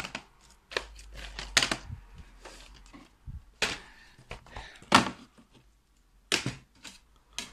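Plastic DVD cases handled on a wooden desk: about eight scattered sharp clicks and knocks as the cases are shifted and picked up.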